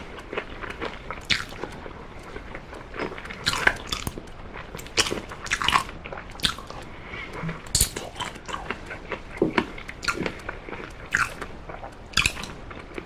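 Close-miked biting and chewing on an oven-baked chicken drumstick, gnawing the meat and gristle off the bone end. It comes as irregular sharp crunches and clicks, one every second or so, with wet chewing between them.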